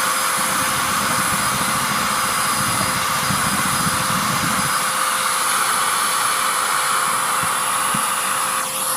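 Vacuum cleaner running with a steady hum, a rough low rumble under it that stops about halfway through.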